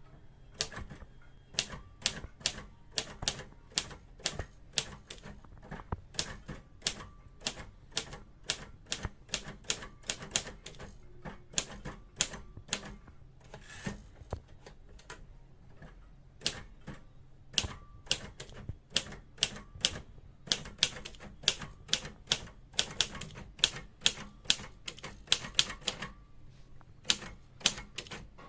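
Royal Safari portable manual typewriter being typed on: a run of sharp key strikes, a few a second and unevenly spaced, with a brief pause about halfway through.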